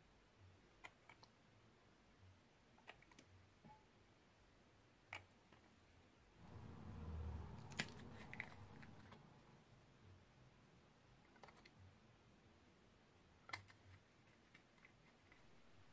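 Faint handling of glass nail polish bottles: small sharp clicks and taps as caps are twisted off and bottles are handled. Midway comes a louder, low handling noise lasting a few seconds.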